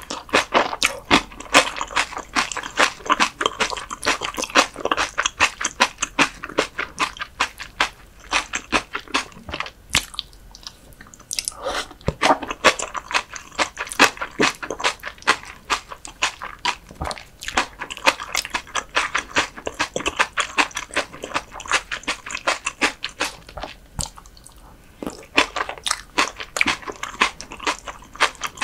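Close-miked chewing of raw whitebait (silchi) sashimi mixed with seasoned raw vegetables: rapid, wet crunches, quieter for a moment about ten seconds in and again near twenty-four seconds.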